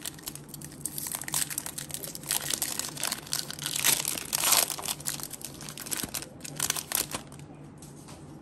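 Foil Pokémon trading card booster pack crinkling in the hands and being torn open, loudest as the wrapper rips about four seconds in; the crinkling stops about seven seconds in.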